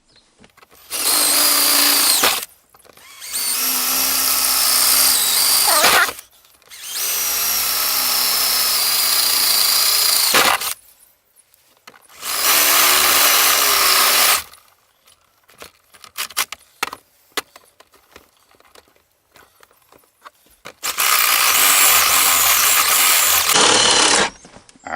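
Power drill running in five bursts of a few seconds each, drilling holes through a plastic switch blanking cover. Small clicks of handling come between the last two bursts.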